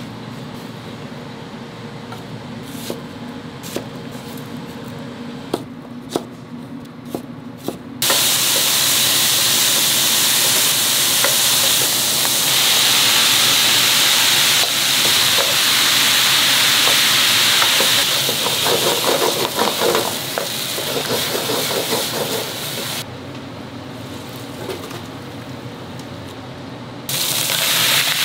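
Kitchen work on ragu sauce: first a few light clinks and knocks of utensils over a steady hum. About eight seconds in, loud sizzling starts as ingredients hit a hot pan, with rhythmic stirring partway through. The sizzle drops away for a few seconds and starts again near the end.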